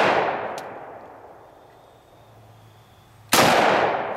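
Ruger Mini-14 rifle in .223 firing outdoors. The echo of one shot fades away over the first second and a half, and a second sharp shot comes about three seconds in, its echo dying off the same way. A faint tick follows each shot.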